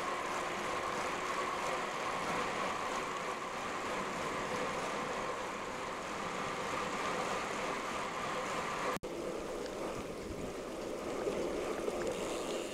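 Steady rushing wind and road noise of a bicycle ride, broken by a sudden cut about nine seconds in.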